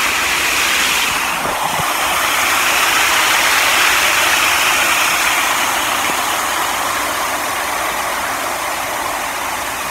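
Steady rushing noise of a waterfall, swelling a little partway through and easing slightly toward the end.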